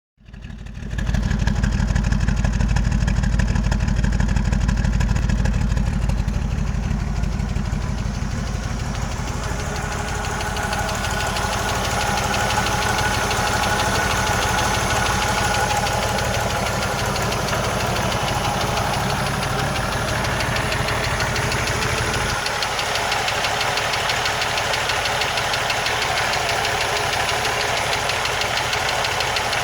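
1980 Jeep CJ7 engine idling with a quick, even ticking running through it, the unexplained tick its owner is trying to trace.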